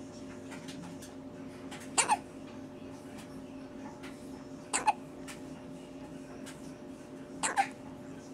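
Baby hiccuping three times, roughly every two and a half to three seconds, each a short, sudden catch of breath.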